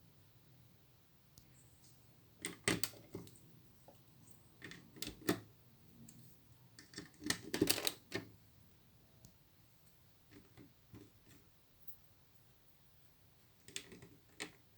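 Plastic Lego pieces clicking and clattering as they are handled and pressed together, in short clusters of clicks a few seconds apart.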